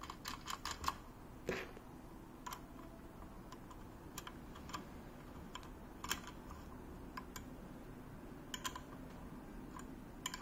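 Faint, irregular clicks and taps of small metal parts as washers and a screw are fitted by hand into a monitor mount's tilt joint, with a quick run of about five clicks in the first second and scattered single clicks after.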